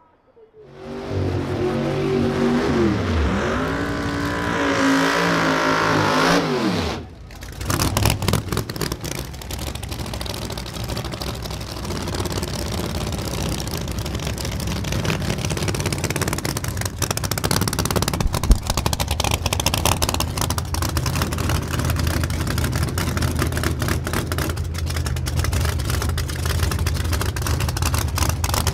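A drag race car's engine at full throttle, its pitch rising and falling twice, cutting off abruptly about seven seconds in. Race car engines then run at a rough, uneven idle close by.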